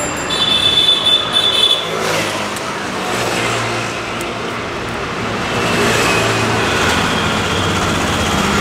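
City street traffic: a steady wash of road noise, with a passing vehicle's engine standing out for a few seconds in the middle.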